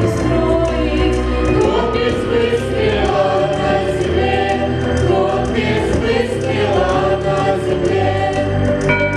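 Choir of voices singing a song over instrumental backing music.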